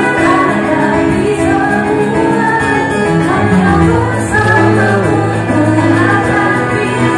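Music with a singing voice over instrumental accompaniment.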